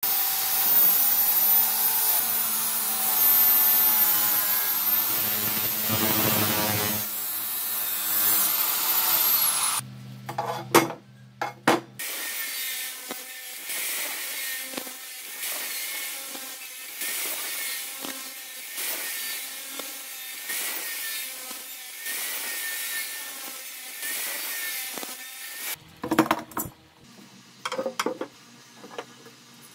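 Abrasive cut-off saw grinding through square metal tubing, its motor whining high; the whine winds down about ten seconds in, followed by clanks of metal tubing being handled. A quieter stretch of grinding follows, and near the end a few more clanks as tube pieces are set down.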